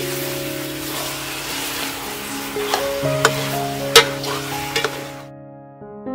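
Chicken pieces sizzling in a hot pot as they are stirred, with a few sharp clicks of the utensil against the pot, over background music with held notes. The sizzling fades out about five seconds in, leaving only the music.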